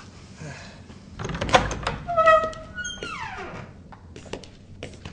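A courtroom door bumps open, then gives a squealing creak that falls in pitch. Scattered light clicks and steps follow as a uniformed officer walks in.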